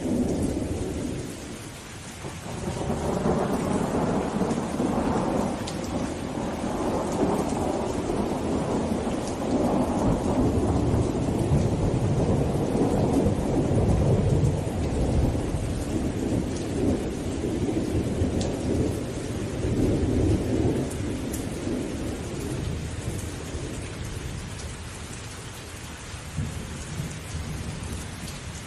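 Steady rain with a long rolling rumble of thunder. The thunder swells a few seconds in, stays loud for most of the stretch and dies away in the last several seconds, leaving the rain.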